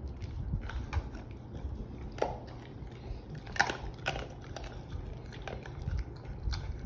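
A person biting and chewing chicken close to the microphone, with irregular crunches and mouth sounds every second or so; the loudest crunch comes about halfway through.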